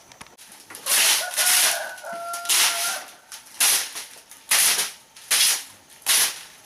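Crunching footsteps on dry ground litter, about one a second, with a chicken's drawn-out call held for about two seconds early on.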